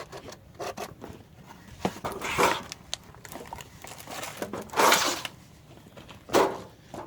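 Rustling and handling noise: scattered light clicks and three short, noisy scrapes or rubs a second or two apart.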